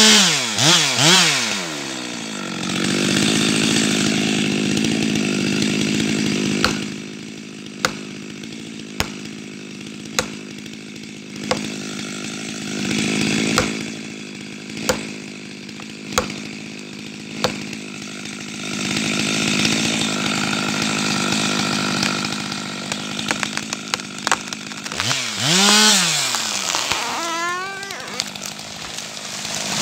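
Chainsaw engine running, mostly at a steady idle, revved up and down at the start and again near the end. In the middle it is broken by a run of sharp knocks, about one every second or so.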